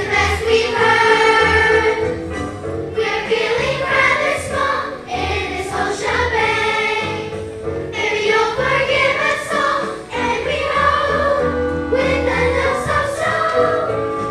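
A school-musical cast of children singing together in chorus over a musical accompaniment with a steady beat.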